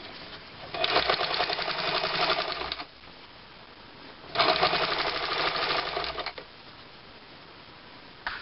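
Electric sewing machine stitching piping onto a cushion cover: two runs of about two seconds each of fast needle strokes with the motor's hum, with a short stop between them.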